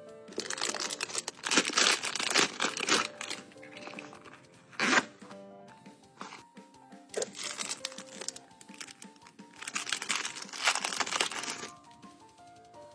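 Packaging being crinkled and torn open in four loud rustling bursts, over soft background music.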